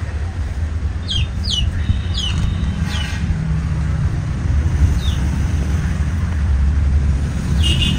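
Outdoor ambience: a steady low rumble, with a few short, falling bird chirps in the first three seconds and one more about five seconds in.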